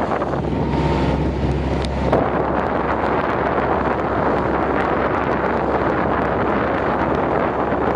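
Wind buffeting the microphone on a small passenger boat under way, over the steady low drone of its engine and the rush of its wake. About two seconds in the sound shifts abruptly, the low drone falling back as the wind noise fills in.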